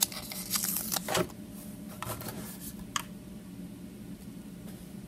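A paper sticker sheet rustling as a sticker is peeled off its backing, with a few small clicks and taps; the handling is busiest in the first second and a half, then comes in a few sharp clicks and dies down.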